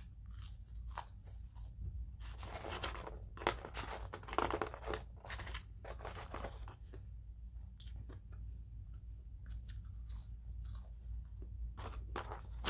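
A person chewing McDonald's fries close to the microphone, with irregular crisp clicks and rustles as fries are picked out of the cardboard carton. A steady low hum runs underneath.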